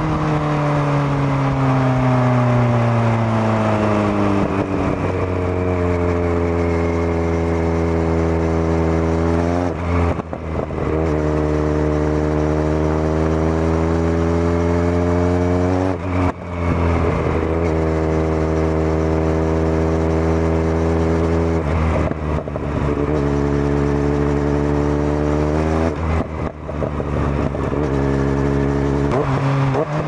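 Kawasaki Z900 inline-four with a Zard full exhaust system, running under way as heard from the rider's seat. The engine note falls over the first few seconds, then holds, broken four times by short dips in the sound as the gears change.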